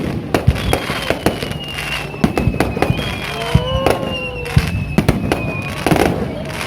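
Fireworks going off in quick succession, a steady run of sharp bangs and crackles, with one long, slowly falling whistle heard through the middle.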